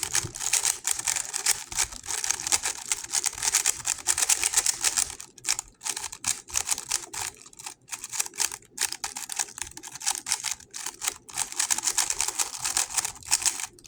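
GAN 11 M Pro magnetic speedcube being turned fast: a dense run of rapid clicking layer turns, broken by more short pauses from about five seconds in.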